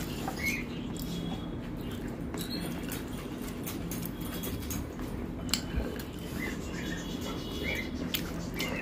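A pet dog whining softly in a few short, high squeaks while begging for food, over small clicks of fingers working rice on a steel plate and a steady low hum.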